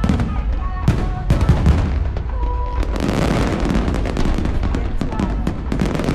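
Aerial fireworks going off in quick succession: many sharp bangs over a continuous deep rumble. A short whistle sounds a little before the middle, and a dense crackling spell follows about halfway through.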